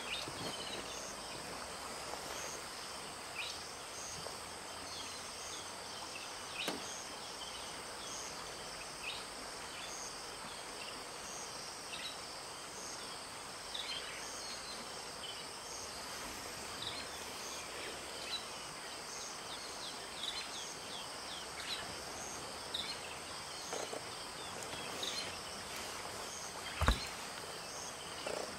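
Natural bush ambience: a steady high-pitched insect drone with a faint chirp repeating about once a second, and scattered short, falling bird calls. A single sharp knock sounds near the end.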